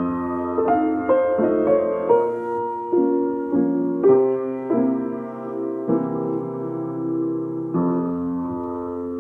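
47-year-old Rönisch upright piano played slowly in a sound test: chords and melody notes struck every half second to two seconds, each left to ring.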